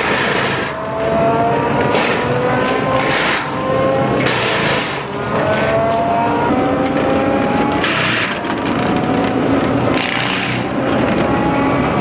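An engine running under changing load, its pitch rising slowly several times, with repeated bursts of harsh noise.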